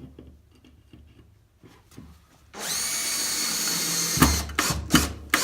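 Power drill spinning for about a second and a half with a steady high whine, then several loud knocks in quick succession near the end.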